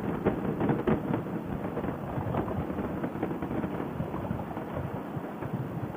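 Wind buffeting a microphone on a moving motorcycle, heard as a dense, steady crackling rumble mixed with road noise.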